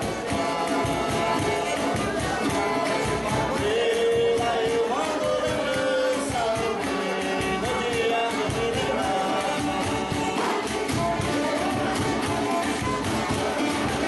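Music: a sung melody over a steady percussion beat.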